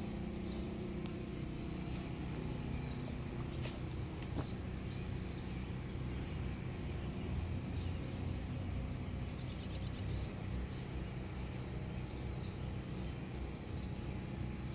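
Outdoor background: a steady low hum with short, high bird chirps every second or two.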